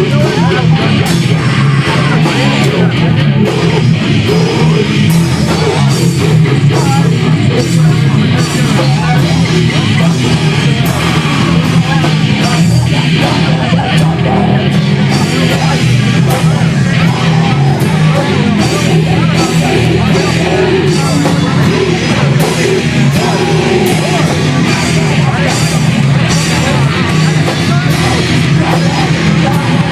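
Punk band playing live: distorted electric guitars, bass and fast drums, with shouted vocals. The sound is loud and unbroken, with rapid cymbal and snare hits.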